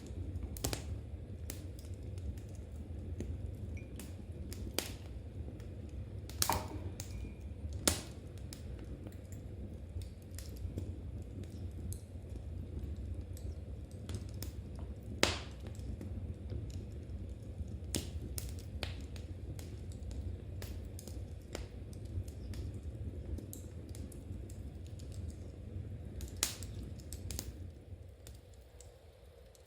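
Knitting needles clicking and a wood fire crackling: irregular light clicks and a few sharp pops over a steady low rush. The rush fades near the end.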